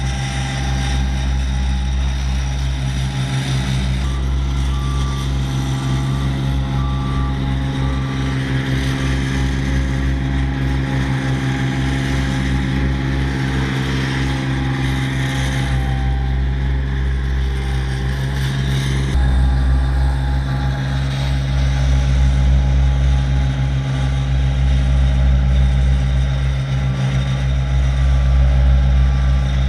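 Small Dynapac ride-on tandem roller's diesel engine running steadily as the machine drives over loose dirt, growing somewhat louder about two-thirds of the way through. A faint short beep repeats about once a second at times.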